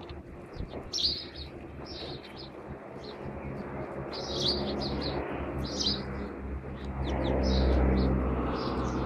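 A flock of house sparrows chirping, short repeated chirps throughout. Under them a steady low engine hum that grows louder about seven seconds in.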